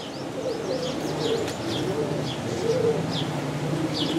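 Pigeons cooing over and over, with short high chirps of small birds above them.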